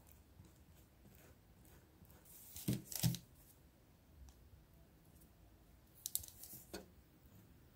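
A table knife scraping softly over a slice of bread spread with ketchup. Then a ketchup squeeze bottle squirts and sputters, about three seconds in, and again briefly just after six seconds.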